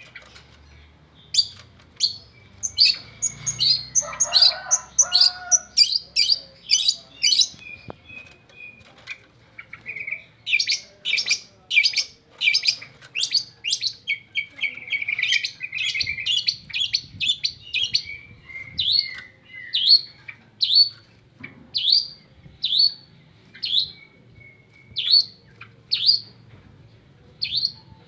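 Long-tailed shrike (cendet) calling: a long series of sharp, downward-sliding chirps, fast in places and about two a second near the end, with a thin trilling note running under them at times.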